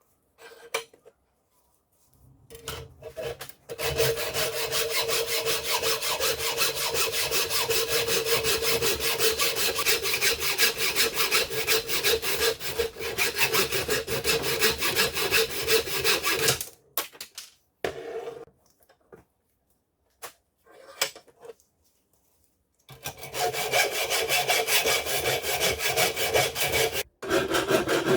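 Steel of a cold chisel being scraped with an abrasive in rapid, even back-and-forth strokes, in two long runs: one from about four seconds in to about the middle, and another near the end, with a few short scrapes between.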